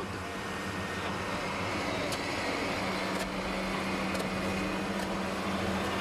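Heavy construction machinery running steadily with an even engine hum, and a low steady tone joins about three seconds in.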